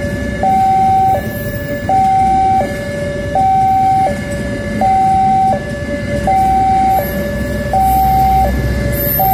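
Electronic two-tone warning alarm of a railway level crossing, switching back and forth between a higher and a lower tone about every 0.7 seconds. Underneath it a passenger train rumbles past, getting louder near the end.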